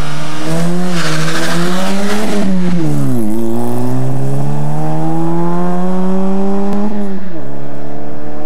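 Peugeot 206 rally car engine revving hard under acceleration, climbing in pitch through the gears with an upshift about three seconds in and another drop in revs near the end. A brief rushing hiss comes about a second in.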